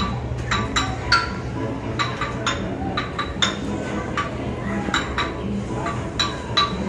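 Sharp clinks of small hard objects, about fifteen at uneven intervals, each ringing briefly, over a steady low background hum.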